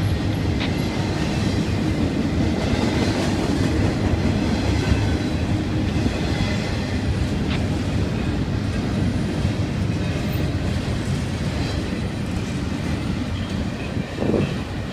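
Double-stack intermodal container freight train rolling past, a steady noise of wheels on rail with some clickety-clack.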